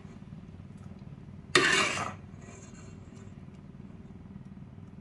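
Perforated steel ladle stirring thick, soft-cooked rice and moong dal in a stainless steel pot: one short scraping stir about a second and a half in, lasting about half a second, over a low steady hum.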